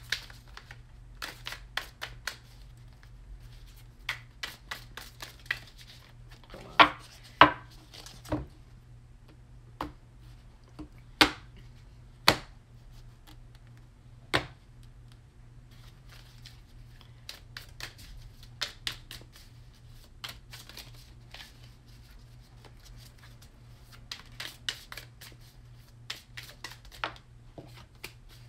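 A thick new tarot deck being hand-shuffled while it is still stiff and being broken in: irregular soft card clicks and slaps, with a handful of louder snaps near the middle.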